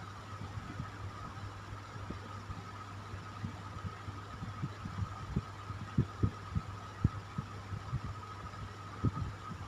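Electric fan running steadily: a low motor hum with a steady higher whine, broken by irregular soft low thumps several times a second, the loudest about six and seven seconds in.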